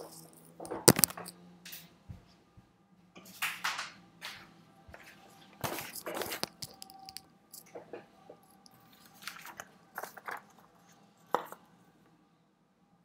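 Irregular rustling and handling noises in short bursts, with a few sharp clicks; the loudest comes about a second in.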